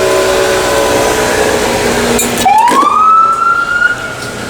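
Emergency vehicle siren passing on a city street. A held tone slowly sags early on, then about halfway through the siren sweeps up in pitch and holds high.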